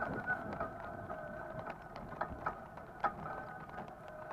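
S12X Vita Monster mobility scooter's electric drive whining steadily while it moves, its pitch drifting a little with speed, with scattered clicks and rattles.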